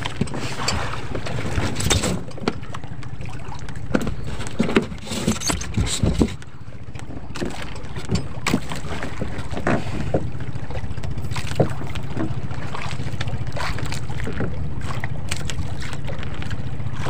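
Small engine of a motorized outrigger fishing boat (bangka) running steadily, with scattered knocks and clatter of gear against the boat in the first several seconds.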